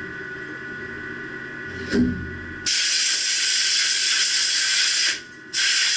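Compressed-air blow gun hissing in a long steady blast, cut off for a moment about five seconds in and then blowing again. A single low knock comes shortly before the air starts.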